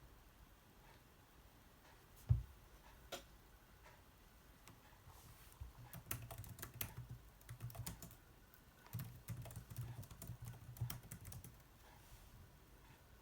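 Typing on a computer keyboard: quick runs of key clicks in two spells, starting about six and nine seconds in. A single soft thump, the loudest sound, comes about two seconds in.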